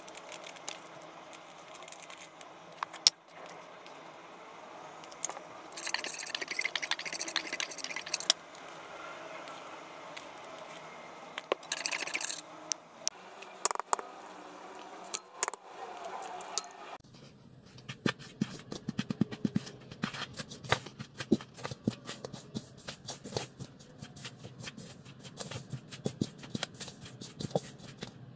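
Wooden spoon stirring flour in a stainless steel mixing bowl: rapid, irregular scraping and clicking against the metal from about two-thirds of the way in. Before that, a few short dry rustles as a small ingredient packet is handled.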